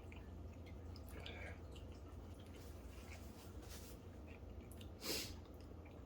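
Faint mouth sounds of chewing a dry chicken sandwich, with a brief louder noise about five seconds in.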